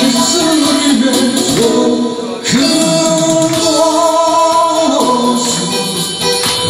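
A man singing a Korean popular song into a microphone over loud backing music, holding one long note in the middle.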